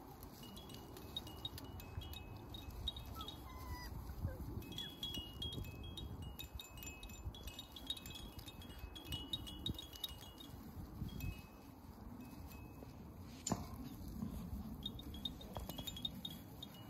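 Faint high chiming: several notes ring on and off over a low steady rumble, with a single sharp click about two-thirds of the way through.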